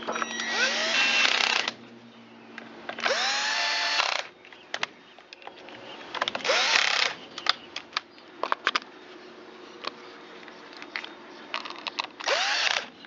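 Power drill driving fasteners in four short runs, each spinning up with a rising whine and then stopping, while the trimmer's housing is screwed back together. Light clicks and clatter of parts and tool handling come between the runs.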